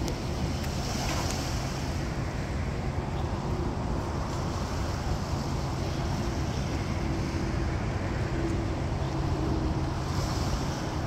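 Wind buffeting the microphone, with a steady low hum underneath.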